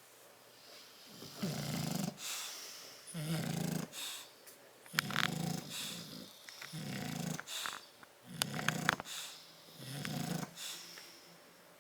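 Sleeping bulldogs snoring: about six snores at a steady pace, roughly one every one and a half to two seconds, with quieter breaths between.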